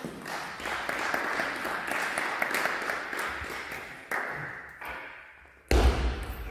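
Spectators clapping in a reverberant sports hall after the point that ends a table tennis game 11-8, fading over about four seconds. A sharp knock comes about four seconds in, and a louder, deep thud near the end.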